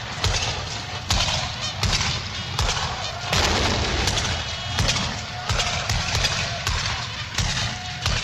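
Battlefield gunfire: sharp single shots cracking at uneven intervals, roughly one every second, over a constant low rumble and din of combat.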